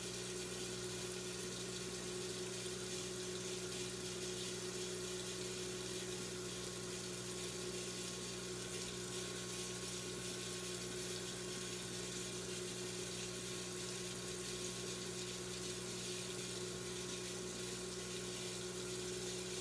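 Steady, unchanging hiss with a low hum underneath; no separate knocks or events.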